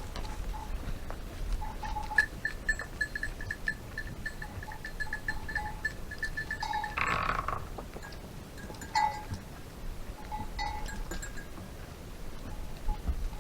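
Goats bleating, with one louder bleat about seven seconds in and a few shorter calls after it. From about two seconds in, a rapid, even run of short high pips goes on for several seconds.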